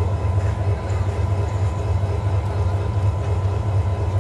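Diesel-electric locomotive idling: a steady, unbroken low engine drone with a faint thin whine above it.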